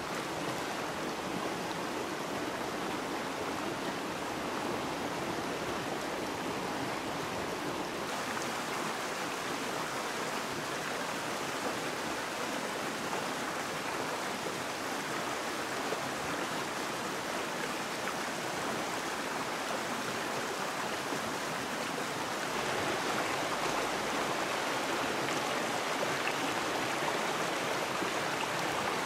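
Shallow river running, a steady rush of flowing water that grows a little louder about three quarters of the way through.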